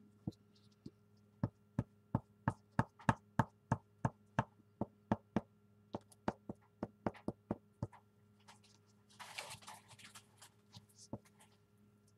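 Glue stick tapping and rubbing across a book page on a wooden table: a quick, regular run of sharp taps, about three a second, that stops a little past the middle, followed by a brief papery rustle as the glued pages are handled.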